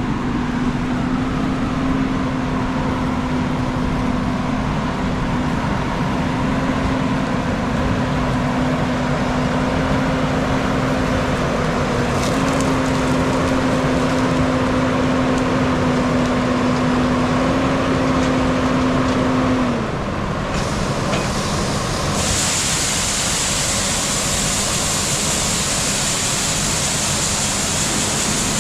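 A farm vehicle's engine running steadily, its pitch stepping up twice and then dropping about 20 seconds in. A louder hiss joins about 22 seconds in.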